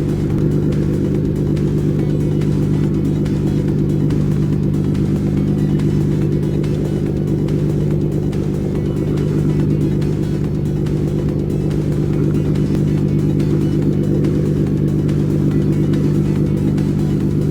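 An engine running at a steady speed, a loud low drone that holds unchanged throughout.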